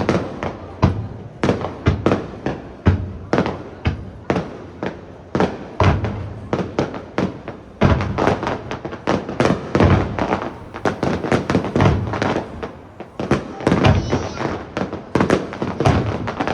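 Aerial firework shells bursting in a rapid barrage, several sharp bangs a second, each trailing off in an echo.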